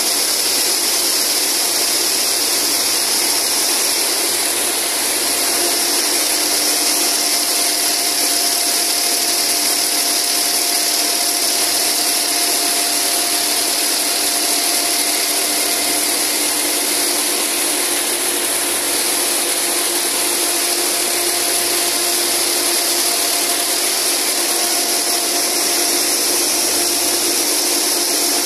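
Many high-speed cord braiding machines running together, their bobbin carriers spinning round the braiding point: a steady, loud mechanical whir with a bright hiss on top and a couple of steady hum tones.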